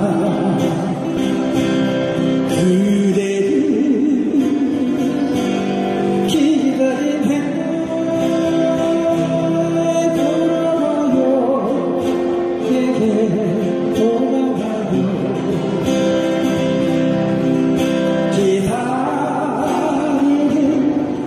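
Male voice singing a Korean song over acoustic guitar and backing music.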